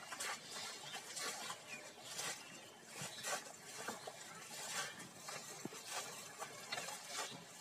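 Shallow muddy water splashing and sloshing as a bamboo polo basket trap is plunged into it and legs wade through, in irregular splashes about once a second.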